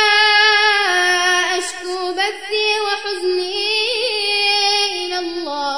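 A male reciter chanting the Quran in melodic tajweed style, holding long notes with small wavering ornaments. His voice drops to a lower note near the end.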